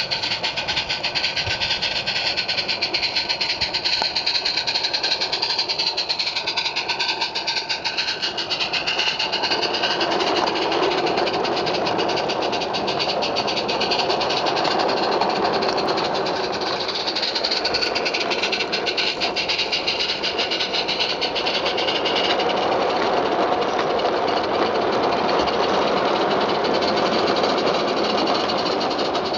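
Small live steam garden-railway locomotive, Ruby, passing with rapid, fast-running exhaust beats and steam hiss. After about nine seconds its long rake of vans rolls past, wheels clattering steadily over the track.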